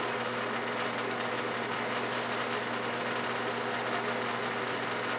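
Metal lathe running steadily, its spindle spinning a three-jaw chuck that holds a small brass part: an even motor and spindle hum with a few fixed tones over a steady hiss.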